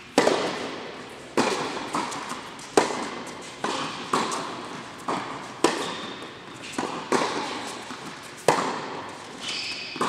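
Tennis rally in an indoor hall: a dozen or so sharp pops of the ball off racket strings and court, each trailed by a ringing echo, coming every half second to a second and a half.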